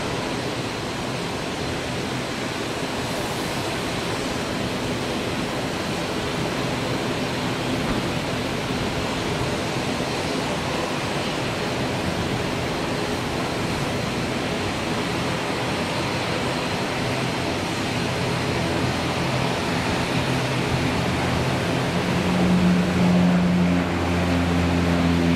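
De Havilland Canada Dash 8-300 twin turboprop at takeoff power: a steady broad roar. Over the last several seconds, as it climbs past close by, droning propeller tones rise out of it and grow louder.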